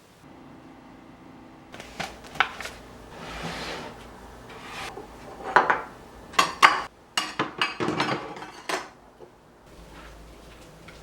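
Dishes and cutlery clinking and clattering in a kitchen, a string of sharp knocks that starts about two seconds in and stops a couple of seconds before the end.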